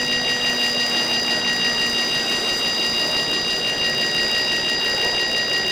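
A freight train rolling past, its wheels and cars rumbling under several steady high-pitched tones.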